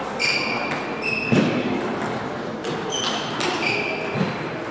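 Table tennis rally sounds in a sports hall: the celluloid ball clicking off bats and table, with several short high squeaks of players' shoes on the court floor.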